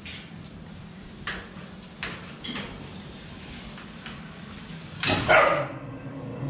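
Phu Quoc ridgeback dog giving one short, loud bark about five seconds in, after a few faint clicks.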